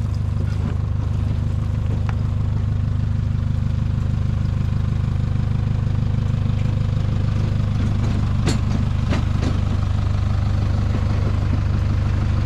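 A vehicle's engine idling steadily close by, a deep, even hum, with a couple of light clicks a little past the middle.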